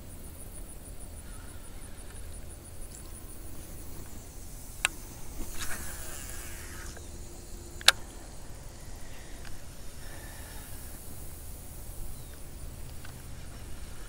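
Baitcasting reel being wound in with fast, even ticking, then a cast: a sharp click, about a second of line whirring off the spool, and a louder sharp click a couple of seconds later. A low steady rumble underneath.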